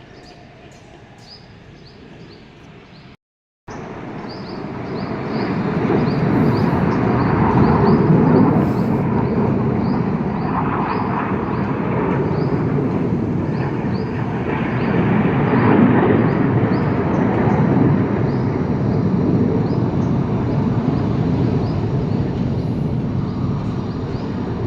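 Jet aircraft of the Surya Kiran team, BAE Hawk trainers, flying past: after a cut a few seconds in, a loud rushing jet roar builds, swells twice and stays loud.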